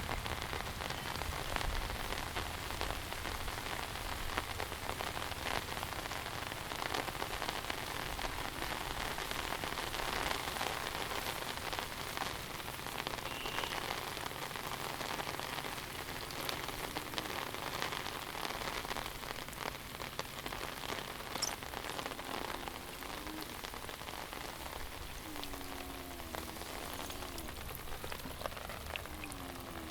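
Heavy monsoon rain falling steadily, a dense even hiss of drops on surfaces. A few faint wavering calls come through in the last several seconds.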